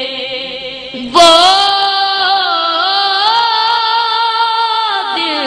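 A boy's high voice singing an Urdu naat, holding one long, wavering note that comes in loudly about a second in, over a steadier lower sung tone.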